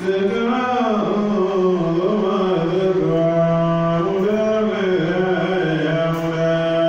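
A man's solo voice chanting one long melodic phrase, with held notes and ornamented rises and falls in pitch, the phrase ending near the end.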